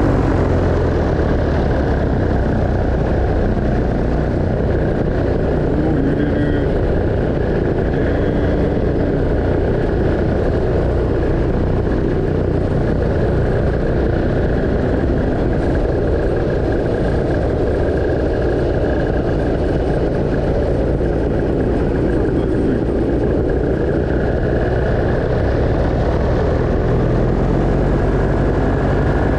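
Paramotor engine and propeller running steadily under power, mixed with wind noise on the microphone.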